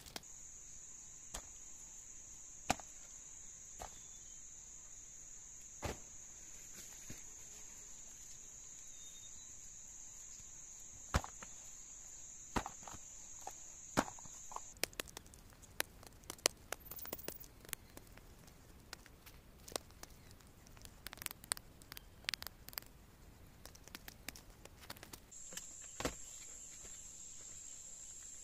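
Steady high-pitched insect drone that stops about halfway through and starts again near the end, over scattered clicks and knocks that come thickest while the drone is absent.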